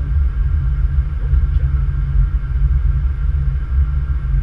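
Steady low rumble inside a Boeing 777-200 cockpit during landing on the runway: engine, airflow and rolling noise, with no distinct events.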